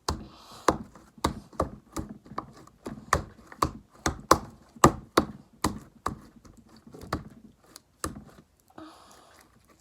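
Hands slapping and patting a lump of slime flat against a table, a sharp slap about twice a second.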